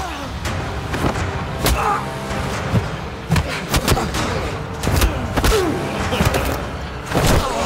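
Fight-scene punch and body-blow sound effects, a string of sharp hits about one or two a second, over a steady music score.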